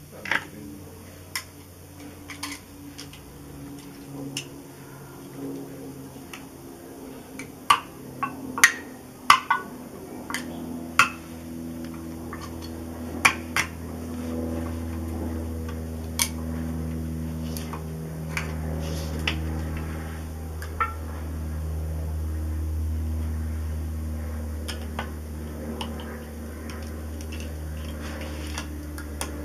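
Scattered sharp clicks and knocks of an open beer can and a raw chicken being handled on a wooden cutting board as the chicken is fitted onto the can, most frequent about a quarter to a third of the way through. A steady low hum runs underneath, swelling toward the middle.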